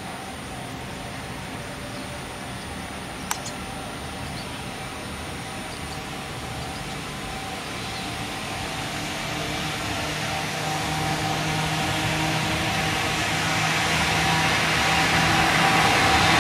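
An approaching freight train hauled by a JR Freight EF210 electric locomotive: its rumble grows steadily louder, and a low electric hum joins it about two-thirds of the way through. A single sharp click sounds about three seconds in.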